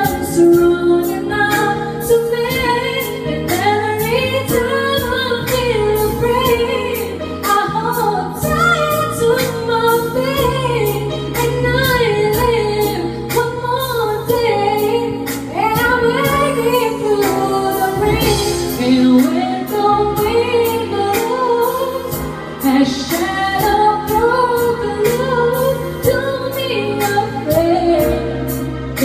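A woman singing a slow pop song into a microphone over a recorded backing track with a steady beat, her voice holding long notes that rise and fall.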